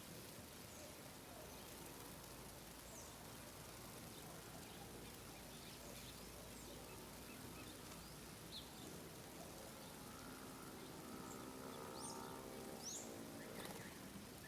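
Faint outdoor ambience with scattered short, high bird chirps. About ten seconds in, a steady low hum with several tones comes up and fades again near the end.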